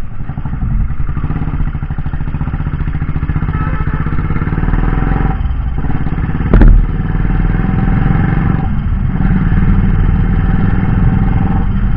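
Motorcycle engine running while riding, its note dipping briefly twice, with a sharp knock about six and a half seconds in.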